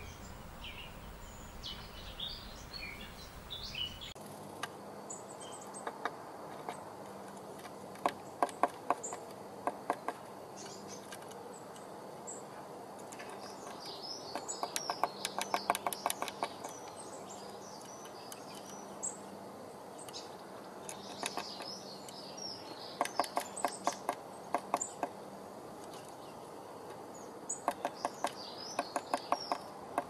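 Small songbirds chirping and calling, with repeated bursts of quick, sharp tapping clicks several times a second that begin about eight seconds in.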